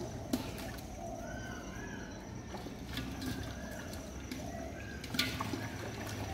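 Outdoor ambience of short bird calls over a steady background, broken by three sharp knocks from the man working in the wet mud, the loudest about five seconds in.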